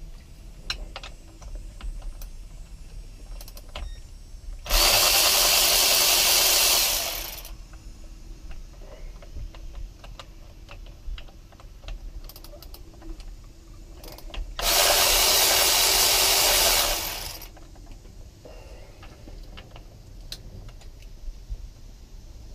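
Cordless drill with a 5 mm hex (Allen) bit running twice, about two and a half seconds each time and trailing off at the end of each run, on the Allen bolts of a Yamaha SVHO supercharger clutch cover. Light clicks of tools and bolts are heard between the runs.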